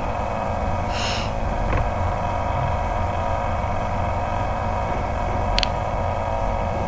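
Steady electrical hum and hiss from the recording's background noise, with a brief soft hiss about a second in and a light click near the end.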